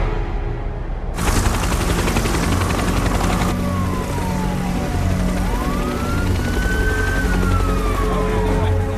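An emergency siren wailing, its pitch falling, rising and falling again, under a loud rushing noise with a low rumble that starts suddenly about a second in.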